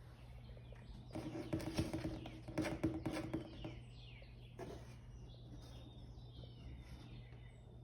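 Small birds chirping repeatedly in the background over a steady low hum. From about a second in, for roughly two and a half seconds, a louder stretch of rustling and light knocks, with a held tone underneath.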